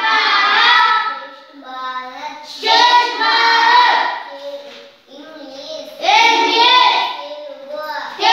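A class of young schoolchildren chanting in unison in a sing-song recitation, loud group phrases about every three seconds, with a quieter single voice between them leading each line, call-and-response fashion.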